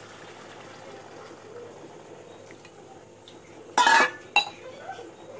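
Metal kitchenware clanking against a pressure cooker pot: one loud, ringing metallic clatter about four seconds in, followed straight away by a lighter knock, over a faint steady hiss.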